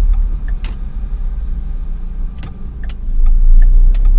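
Car cabin sound while driving in traffic: steady low engine and road rumble with a few sharp clicks or rattles and faint small ticks. The rumble grows louder a little after three seconds in.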